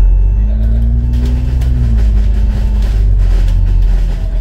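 Double-decker bus running through city traffic, heard from the upper deck: a deep, steady engine and road rumble, the engine note rising and then falling back between about half a second and two and a half seconds in.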